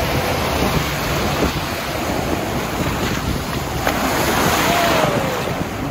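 Ocean waves breaking and surf washing through the shallows around wading legs, a steady rush, with wind rumbling on the microphone.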